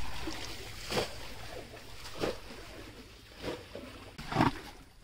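Water sloshing and splashing in a bucket of small live fish as a hand sorts through the catch. It comes in a few short, irregular splashes, the loudest near the end.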